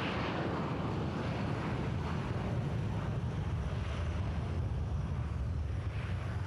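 Jet engines of a rear-engined twin-jet airliner at takeoff power during the takeoff roll, heard as a steady low rumble.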